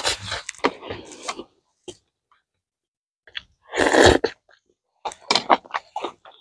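Close-miked eating and drinking sounds: gulping from a plastic cup in the first second or so, one loud burst of breath about four seconds in, then quick wet chewing clicks near the end.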